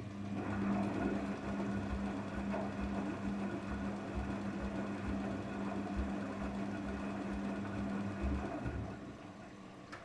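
Daewoo DWD-FT1013 front-loading washing machine running with a steady low motor hum and irregular dull thuds of water sloshing in the turning drum, during the cooldown of a 95 °C cotton drum-cleaning cycle. The hum stops about nine seconds in.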